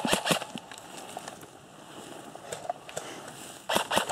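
Footsteps and gear rustling through forest undergrowth, with scattered clicks. Near the end a fast, even run of sharp clicks begins, about six or seven a second.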